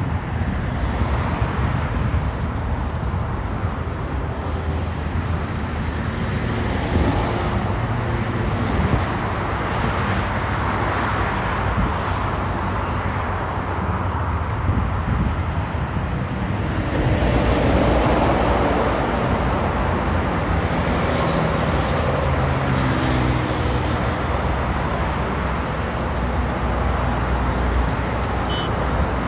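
Road traffic on a city avenue: cars and other vehicles passing in an unbroken stream, engine hum and tyre noise, swelling as each one goes by, with the loudest pass a little past the middle.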